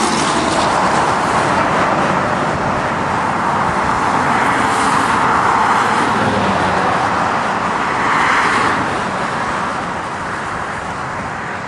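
Steady rush of roadway traffic noise, swelling twice as vehicles go by.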